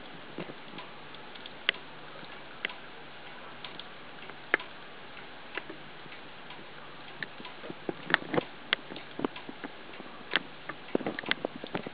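Scattered light clicks and taps at uneven intervals over a steady hiss, coming more thickly in the last few seconds.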